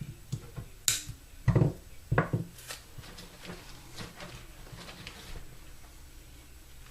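Wires of a wiring harness being handled and wrapped with tape: a few sharp knocks and clicks in the first couple of seconds, then fainter rubbing and rustling.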